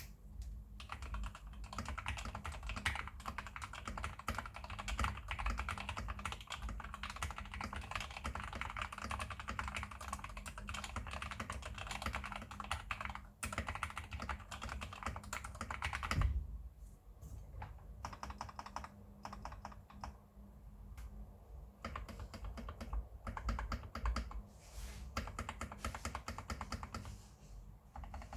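Fast typing on a computer keyboard: a dense run of key clicks that turns to sparser keystrokes for a few seconds past the middle, then picks up again.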